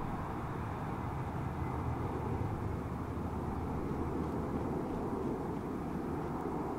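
C-130 Hercules's four turboprop engines running steadily as the aircraft flies low past and towards the listener, an even drone with a low hum.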